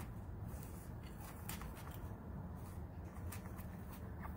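Kitchen knife scraping the inside of a halved pumpkin, loosening the stringy pulp and seeds: faint scrapes with a few soft clicks, over a steady low hum.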